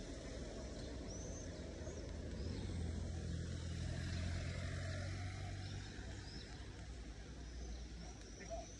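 A motor vehicle's engine passing by, a low steady hum that swells to its loudest about halfway through and then fades away.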